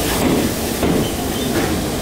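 Electric multiple-unit train running on the track, with a steady rumble of wheels on rail.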